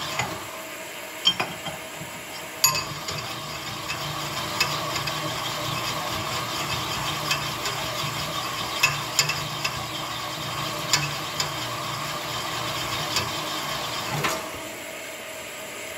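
Horizontal rod-honing machine running while a Chevy 283 connecting rod's big end is stroked back and forth over the spinning honing mandrel, honing the bore to size: a steady whirring scrape with scattered metal clinks from the rod. The honing stops about fourteen seconds in.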